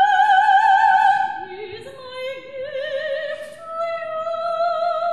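Operatic female voice singing long held notes with wide vibrato: a high note for about the first second and a half, then lower notes that step upward, over a piano accompaniment.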